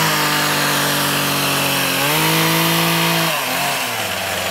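Chainsaw running at high revs, its pitch holding steady, stepping up about two seconds in and sagging again about a second and a half later.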